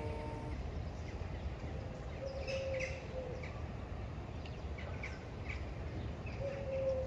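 Birds chirping outdoors, with short scattered calls and a longer low call twice, over a steady low rumble. A piece of music fades out in the first half second.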